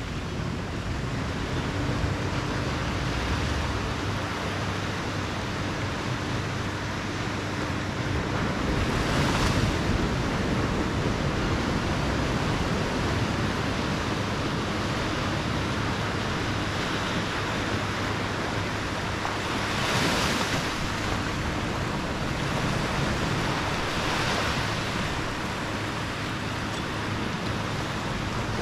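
Small waves gently breaking and washing up on a sandy beach: a soft, continuous surf that swells a little louder about a third of the way in and twice more in the second half.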